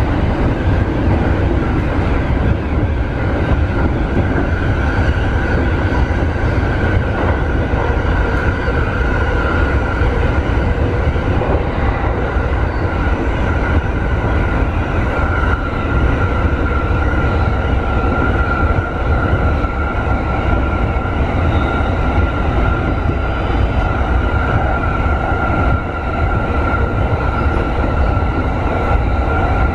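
E231-series electric commuter train running at speed, heard from inside the lead car: a steady loud rumble with a thin steady high whine over it.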